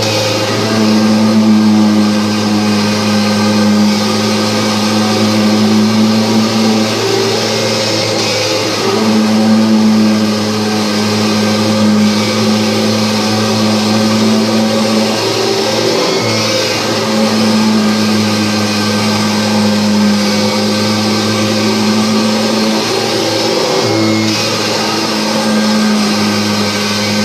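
Kirby G5 upright vacuum cleaner running steadily on carpet, picking up crumbs; its loud motor hum swells and eases every several seconds.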